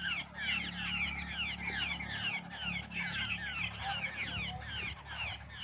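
Babblers chattering: a continuous, overlapping run of short falling notes, several a second.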